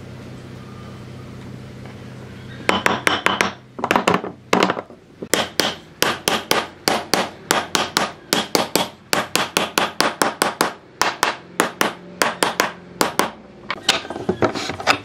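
Mallet striking the top rail of a pine slatted frame to drive it down onto the uprights: a rapid run of sharp wooden knocks, about three a second, starting about three seconds in and stopping shortly before the end.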